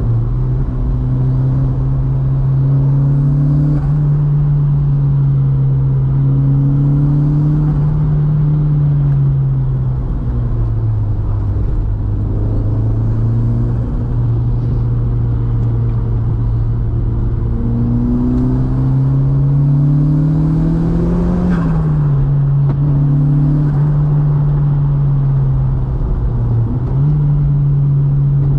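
VW Mk2's 1.8T turbocharged four-cylinder engine pulling up a mountain pass. Its pitch climbs and falls with the throttle and gear changes, with a sharp drop about three-quarters of the way through and a quick rise near the end.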